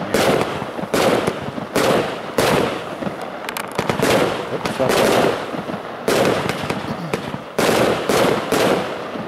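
Solaris 16-shot, 25 mm Category 2 firework cake (JW4067) firing its shots in quick succession: about a dozen sharp reports, one every second or less, each trailing off in a short hiss. The firing ends near the end.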